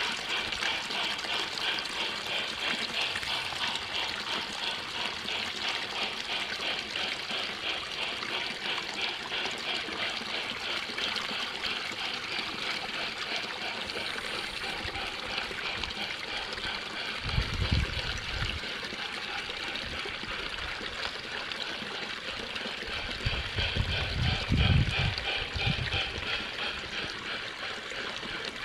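Water trickling steadily. Brief low rumbles come about 17 seconds in and again between about 23 and 26 seconds.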